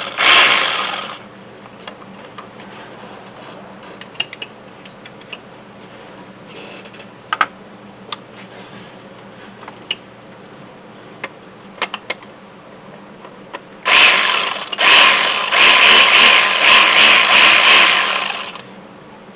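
Handheld power tool running on the EGR valve bolts: a short burst at the start, then a longer run of stop-start bursts lasting about four seconds near the end. In between are a few scattered light clicks.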